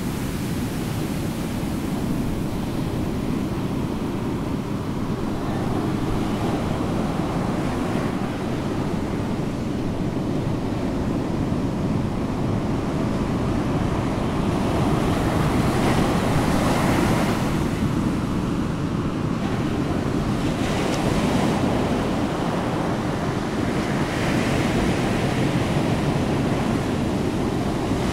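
Ocean surf: a steady low rush, with waves swelling and washing in every few seconds, most strongly in the second half.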